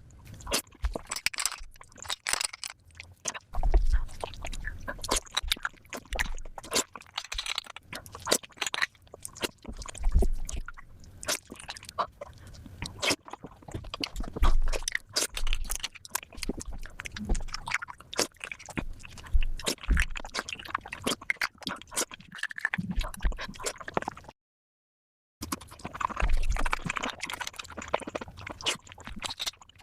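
Close-miked eating sounds of spicy beef marrow, sped up five times: a rapid, dense stream of chewing clicks and crunches. It drops out to dead silence for about a second, about 24 seconds in, then carries on.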